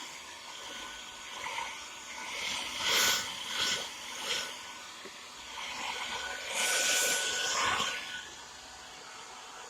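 Handheld hair dryer blowing, a steady airy hiss with a thin motor whine, swelling louder several times as it is moved around, used to heat a motorcycle headlamp so the lens can be opened.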